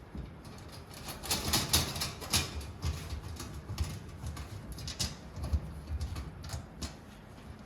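Scattered clicks and knocks of metal DVR rack parts being handled and fitted together, with a louder run of knocks a couple of seconds in.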